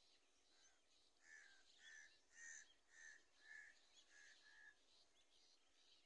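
Red-wattled lapwing calling: a faint run of about seven sharp repeated notes, roughly two a second, from about a second in until near the five-second mark. Small birds chirp faintly in the background.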